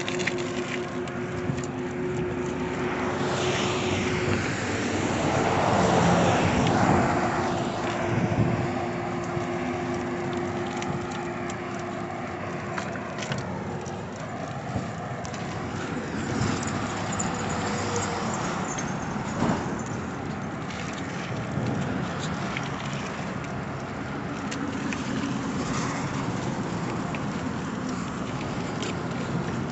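Highway traffic driving past: a continuous rush of vehicles with engine hum, swelling as a vehicle passes close about five seconds in.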